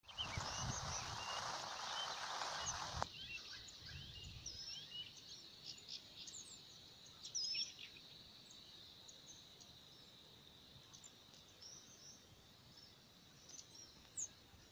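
Faint outdoor ambience of small birds chirping and calling, with short high chirps and glides scattered throughout. A steady hiss stops abruptly about three seconds in, and a low bump comes about halfway through.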